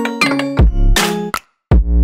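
Electronic music with a drum-machine beat and deep bass hits; it cuts out suddenly about a second and a half in, then comes back.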